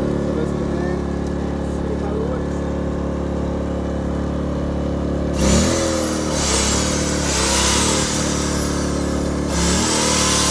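Pulsar GX400BN inverter generator's engine running steadily in eco mode on propane. About five seconds in, a hissing appliance starts on its power and the engine dips in pitch, then revs up to take the load; near the end the load cuts out for a moment and comes back with another dip and rise.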